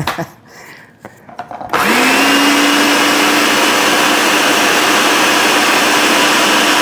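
Food processor motor starting about two seconds in after a few light knocks, quickly spinning up and then running steadily with a whine, its blade chopping dry rolled oats into a coarse flour.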